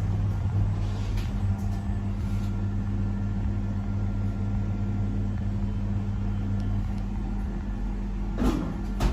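Steady low hum of elevator machinery running, with a single knock near the end.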